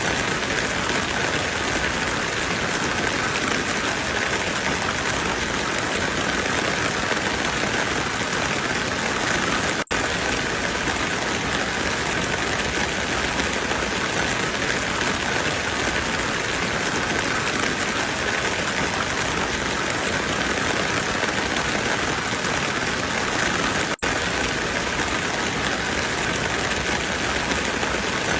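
Waterfall: falling water rushing steadily, with two momentary dropouts about ten seconds in and again near the end.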